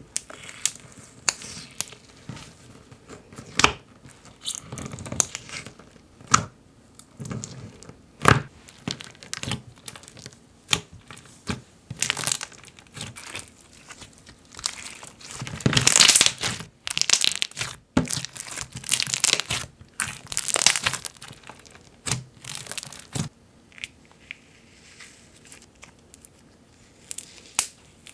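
Jelly slime with jelly cubes and sugar scrub beads being poked, stretched and squeezed by hand: irregular crackling, popping and squelching, with the jelly cubes crunching as they are squished. The longest, loudest run of crackles comes a little past halfway.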